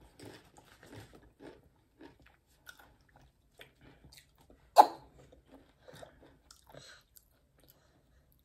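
Tortilla chips being bitten and chewed: a run of small crisp crunches, with one loud sharp crunch about five seconds in.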